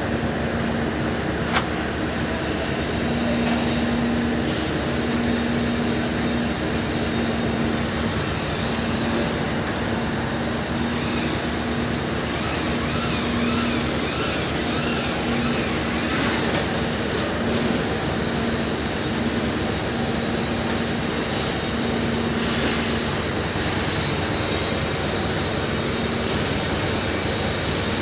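Steady, loud mechanical noise of heavy machinery, with a low hum that comes and goes and a single sharp click about a second and a half in.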